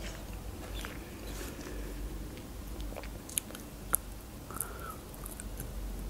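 Close-miked eating sounds: soft chewing and wet mouth clicks of someone eating ice-cream cake, with a couple of sharper clicks about three and a half and four seconds in.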